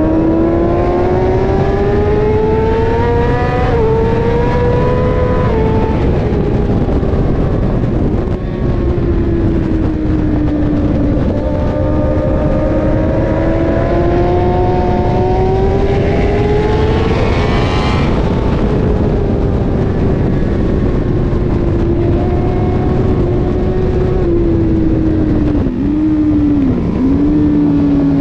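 Sport motorcycle engine heard from its own onboard camera at track speed, the revs climbing through the first few seconds, easing off, climbing again to a peak about 18 seconds in, then dropping with two quick dips near the end as the rider works through the corners. Heavy wind rush over the microphone runs underneath.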